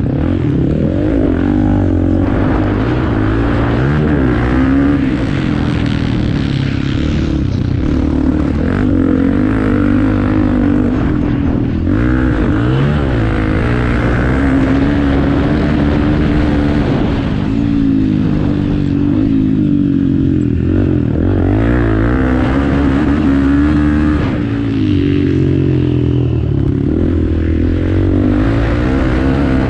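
Off-road motorcycle engine running hard, its pitch rising and falling with throttle and gear changes.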